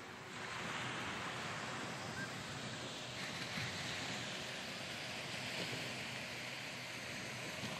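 Steady wash of sea surf on a beach, with wind in the background.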